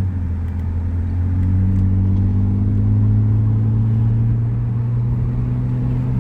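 BMW E90 325i's straight-six engine idling steadily, a low even hum whose pitch shifts slightly in the first second or two.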